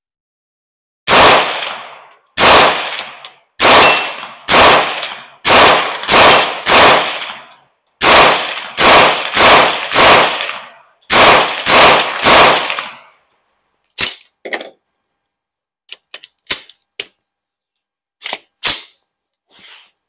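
AR-15 with a .22 WMR rimfire upper firing semi-automatic, about fifteen sharp cracks each with a short ringing tail, spaced roughly half a second to a second apart as the action cycles round after round. A few fainter, shorter cracks follow over the last several seconds.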